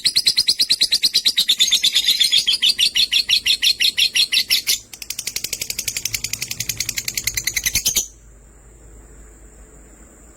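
Lovebirds chirping in a rapid, even run of high chirps, about eight a second, with a short break about five seconds in; the chirping stops abruptly about eight seconds in.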